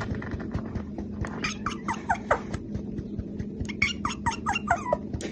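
Kitten mewing in short, high squeaks that each slide down in pitch, a quick run about a second and a half in and another around four seconds in, over a steady low hum.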